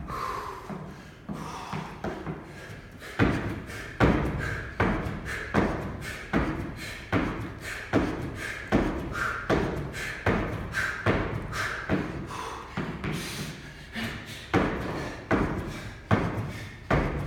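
Repeated thuds of feet landing back on a wooden plyo box during jumping pull-ups, a steady rhythm of about one landing every three-quarters of a second, growing heavier about three seconds in.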